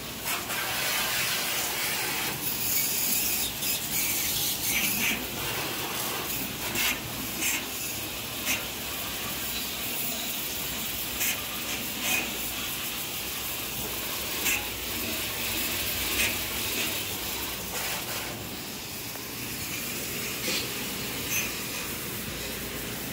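Belt-driven electric pressure washer spraying water inside an empty island freezer: a steady hiss of the jet, with scattered short clicks and knocks.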